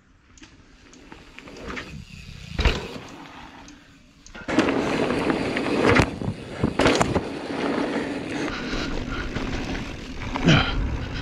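Specialized Enduro Comp mountain bike ridden fast down dirt singletrack: tyres rolling over dirt with wind rushing over the camera mic, and sharp knocks and clatter from the bike over bumps. It is fairly quiet for the first few seconds, then the loud riding noise comes in about four seconds in.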